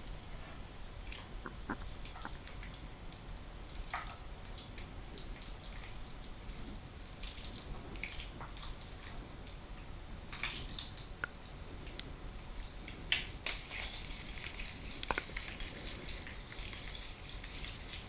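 Close-miked eating of saucy spaghetti: wet, sticky smacks and small clicks come at an irregular pace, with one sharp click about thirteen seconds in.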